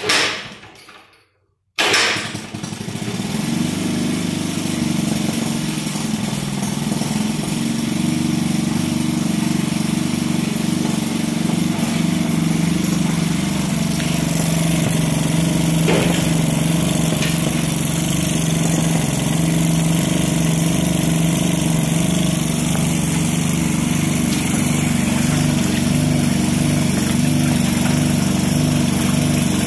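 Maytag Model 72D twin-cylinder two-stroke gasoline engine on a 1932 wringer washer being kick-started: it fires at once and dies away, then about two seconds in it catches and runs steadily, driving the washer.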